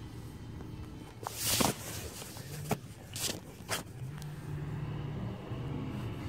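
Car interior: a steady low hum of engine and road noise. It is broken in the first half by a loud rustle and a few short knocks, and from past the middle a low engine drone grows a little louder.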